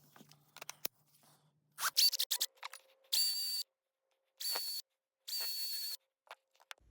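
A Milwaukee cordless cutoff tool driving a belt-sander attachment, switched on three times in short bursts, each a steady high-pitched whine with belt noise. A quick run of sharp clicks comes just before the first burst.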